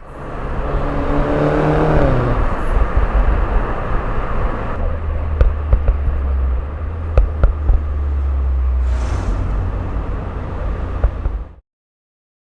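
Turbocharged Mini Cooper engine revving up under acceleration, its note rising for about two seconds and then dropping off, followed by a steady low rumble with several sharp exhaust pops and a short hiss. The sound cuts off suddenly near the end.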